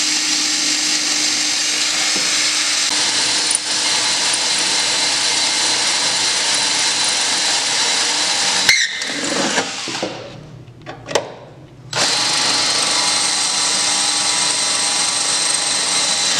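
DeWalt 20V cordless drill running steadily as it bores rivet holes through a snowmobile's metal bulkhead side plate. A sharp click comes about nine seconds in, the drill goes quiet for a couple of seconds, then it runs steadily again.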